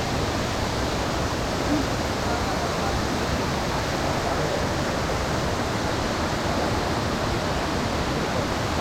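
Waterfall on the Attaru river, water pouring and rushing steadily.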